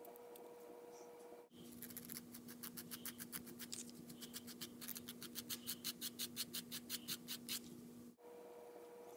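Nail file rubbing back and forth on a small sculpted acrylic piece, in quick even strokes of about four a second. It starts about a second and a half in and stops abruptly about eight seconds in, with a faint steady hum before and after.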